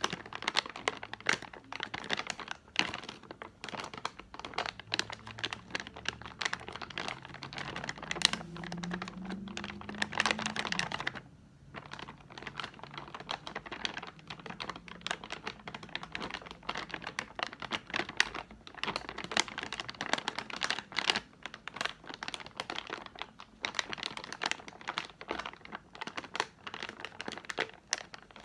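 Hands crinkling and crumpling crinkly plastic candy packaging: a dense run of sharp crackles. It pauses briefly about eleven seconds in, then carries on.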